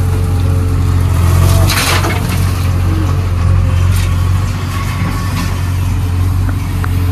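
JCB 3DX backhoe loader's diesel engine running steadily with a deep hum, heard from inside the cab while the backhoe arm works. There is a brief rushing noise about two seconds in.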